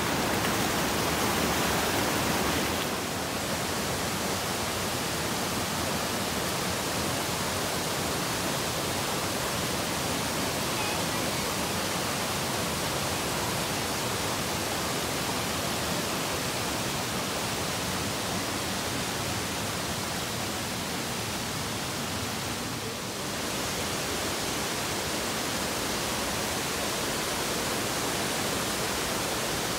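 Mountain stream rushing over boulders in small cascades: a steady rush of water, a little quieter after about three seconds in.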